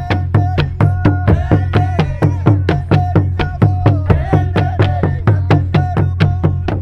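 Burundian ceremonial drums (karyenda-style ingoma) beaten with wooden sticks by an ensemble, a fast, steady, even beat of about five strikes a second over a deep drum boom, with voices chanting over the drumming.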